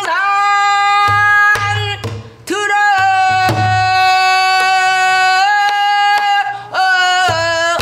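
Pansori-style singing of a danga: a woman's voice holding long notes that waver and bend at the phrase ends. A few strokes on a buk barrel drum keep the beat.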